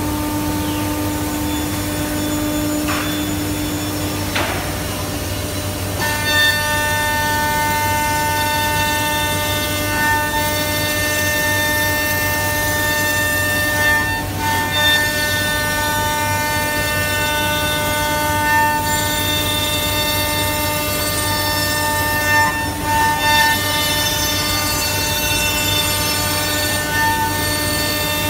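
Router spindles of a Holztek D2400CNC door lock-and-hinge boring and mortising machine running at speed and cutting into a wooden door, a steady high whine of several tones. About six seconds in a second, louder whine joins as another cut begins, with brief swells as the bits bite into the wood.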